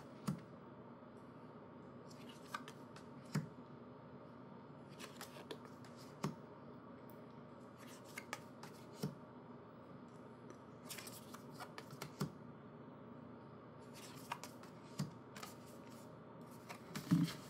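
Faint, scattered clicks and taps of small cards and paper pieces being handled, over a low steady room hum.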